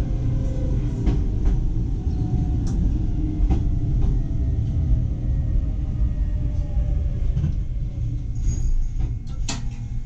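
Iga Railway electric train's running rumble heard in the cab as it slows along a station platform to a stop, its motor whine falling in pitch. A brief sharp high screech comes near the end.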